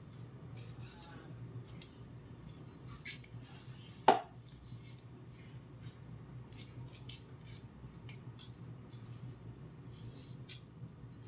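Small knife scraping and nicking the papery skins off shallots: short dry scratches at irregular intervals, with one sharp click about four seconds in.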